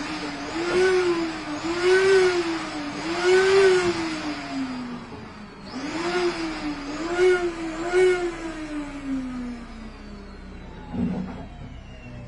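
Electric air blower of a balloon-stuffing machine running, its pitch swelling and sagging about once a second, then winding down. It starts up again about six seconds in and winds down once more, followed by a short thump near the end.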